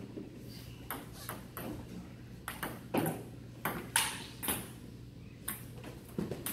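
Table tennis rally: a celluloid ball clicking sharply and irregularly off the paddles and the table, about two hits a second, the loudest strikes about three and four seconds in.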